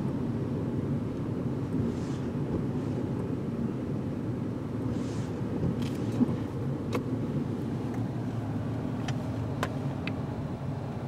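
A car driving on a wet road, heard from inside the cabin: a steady low engine and tyre rumble, with a few light ticks in the second half.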